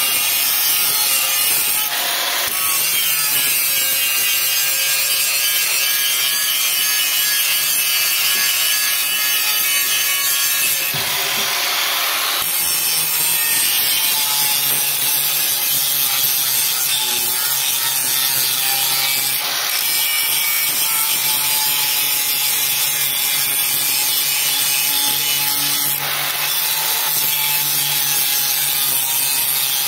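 Handheld electric angle grinder running steadily while grinding the steel cutter blades of a soybean thresher to sharpen them. Its motor whine runs under a harsh grinding hiss that swells briefly about four times, longest a third of the way in.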